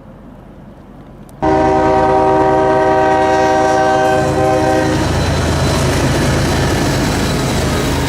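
A loud horn sounding a chord of several steady notes for about three and a half seconds, starting abruptly, followed by a steady low noise of heavy machinery.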